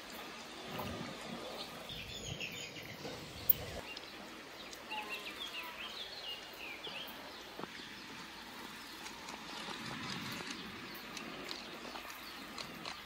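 Outdoor garden ambience: small birds chirping in short bursts, with faint rustling and nibbling from animals feeding close by and one sharp click.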